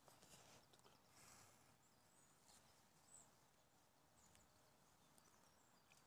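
Near silence: a faint outdoor background with a few short, faint high chirps from birds and a couple of soft clicks.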